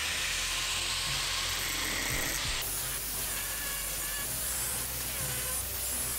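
Angle grinder with a 36-grit flap disc grinding a metal hitch pin, cleaning off weld burrs and rounding its end: a loud, steady grinding hiss. Its tone shifts about two and a half seconds in.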